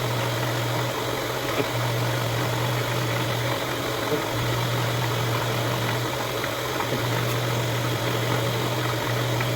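A motor running steadily with a low, even hum over a hiss of noise, the hum dropping out briefly a few times.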